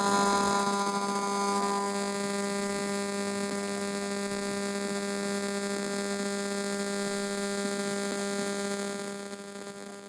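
A Nintendo Wii game console's microwave radio emissions, made audible by an RF meter, giving a steady buzzing hum that fades out near the end.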